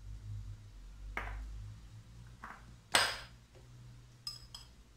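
Kitchen utensils clinking: a metal spoon knocking against dishes and spice containers while spices are measured out, about five sharp clinks, the loudest about three seconds in, over a low steady hum.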